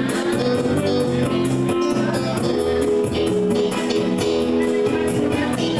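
Dance music with guitar over a bass line and a steady beat.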